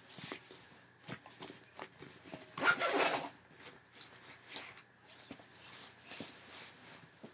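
Rummaging by hand in a fabric sports gear bag: rustling and rubbing of cloth and bag material, with scattered small knocks and clicks. The loudest rustle comes about three seconds in.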